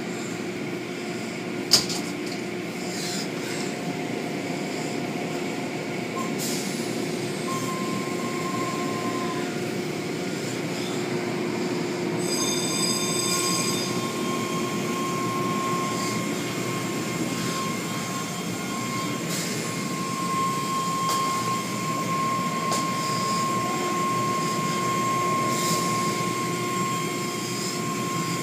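Automatic tunnel car wash running: water spray and soft-cloth curtains and brushes swishing over a car, over a steady machine hum with a high, even motor whine. A single sharp knock about two seconds in.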